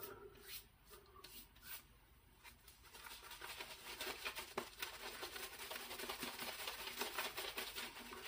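A few faint clicks, then from about three seconds in a shaving brush is worked over lathered skin: a quiet, fast, scratchy swishing of bristles and foam.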